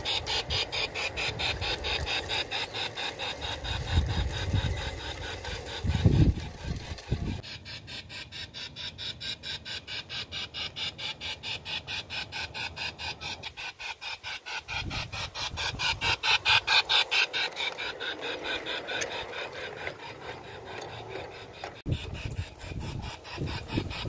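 G-scale LGB model steam locomotive running with a steady rhythmic chuff, several beats a second, growing louder as it comes close and fading as it moves away. A few low thumps fall in between.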